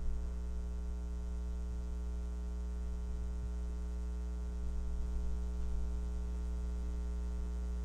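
Steady electrical mains hum: a low, unchanging buzz with a stack of fainter overtones above it, carried on the audio feed.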